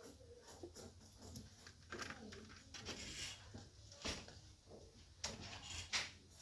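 Hard plastic items handled on a shelf: a clear plastic organizer is shifted and a red plastic jelly-bean mold is picked up. Irregular light knocks and clatters, the sharpest about four and six seconds in, over a steady low background hum.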